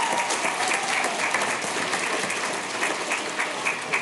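Audience applauding, the clapping thinning and dying down near the end.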